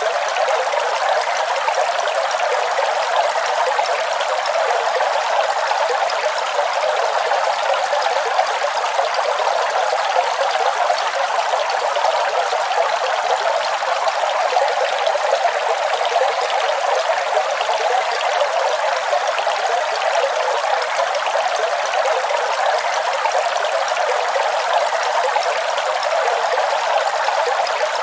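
Waterfall, its falling water making a steady, even rush with no low rumble.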